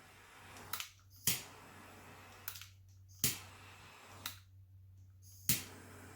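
Handheld torch hissing as it is worked over wet resin, with a sharp click each time the trigger is pressed or let go. The flame sound cuts out three times and comes back with the next click, about half a second to a second later.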